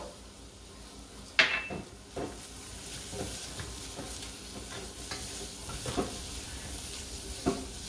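Chopped onion, garlic and oregano sizzling in hot oil in a saucepan while a silicone spatula stirs them, with soft scraping strokes. A single sharp clink about a second and a half in.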